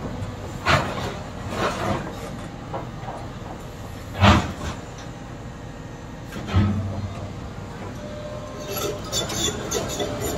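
Cat tracked excavator working crushed stone: a few heavy knocks and clanks of the steel bucket against rock over the machine's steady running, the loudest about four seconds in and a deep thump a couple of seconds later. Near the end there is a busier rattle of stones.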